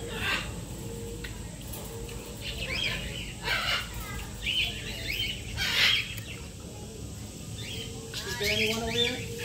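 Short high chirping calls repeated every second or so, with a few brief noisy bursts, the loudest about six seconds in.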